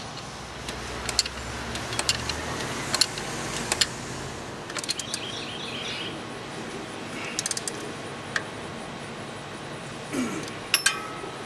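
Wrench tightening the alternator mounting bolts: scattered sharp metallic clicks and clinks, with a short run of quick, even clicks about five seconds in. A low hum sits underneath for the first four seconds or so.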